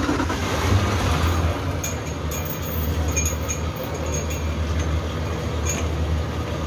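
Honda 250 hp four-stroke outboard motors running at idle with a steady low rumble.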